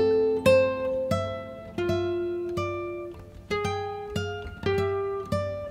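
Background music: a plucked guitar picking a melody, a new note or chord about every half second, each ringing and fading.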